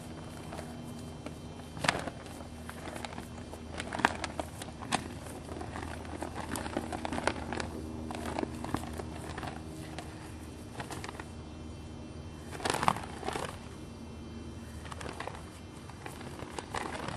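Color guard flag being swung and spun, its fabric flapping and whooshing through the air, with a few sharp snaps now and then, the loudest about thirteen seconds in.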